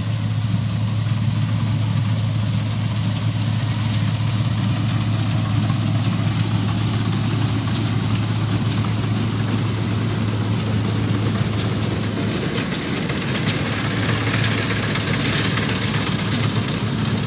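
Kubota DC60 combine harvester's diesel engine running steadily while it cuts rice, a constant low drone over the clatter and rush of the header and threshing works.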